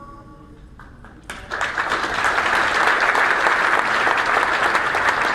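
Audience applause breaking out about a second in and holding steady, as the last notes of a film's music soundtrack fade away.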